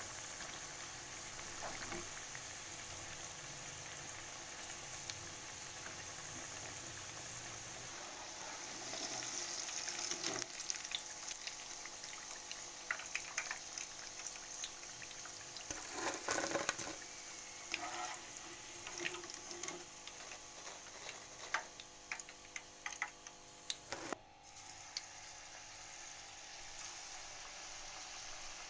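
Potato wedges deep-frying in hot oil in a wok: a steady sizzle with crackling that grows busier about a third of the way in. Through the middle come sharp clinks and knocks of a metal wire skimmer and spatula against the wok as the wedges are lifted out.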